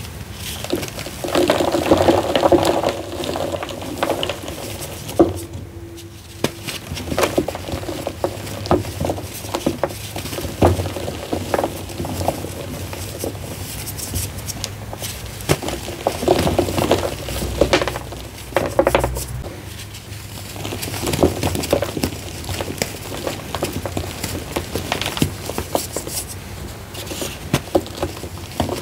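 Hands squeezing and crumbling blocks of reformed gym chalk mixed with fine sand: crunching made of many small cracks close together, as the blocks break apart and powder falls. There is a brief pause about five seconds in.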